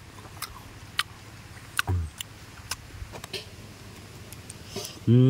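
Wet mouth clicks and smacks from someone eating sour mango, with a brief low "mm" about two seconds in. Near the end comes a loud, long held vocal groan that falls slowly, a reaction to the sourness.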